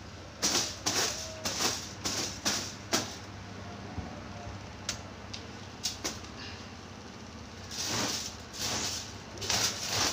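Broom swept across a cloth-covered mattress: a quick run of brushing strokes, a quieter stretch in the middle with a few light ticks, then more strokes near the end.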